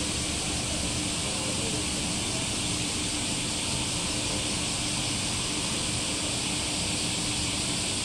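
A steady, even hiss, strongest in the high range, with a faint steady hum beneath it.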